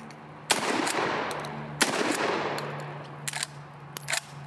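Dickinson Arms XXPA 12-gauge shotgun firing twice, about a second and a quarter apart, each blast trailing off in a long echo. Two short, sharp metallic clicks follow.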